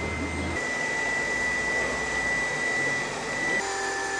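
Steady hiss of steam from the standing steam locomotive ΔΚ8.001, with a thin high steady tone running through it.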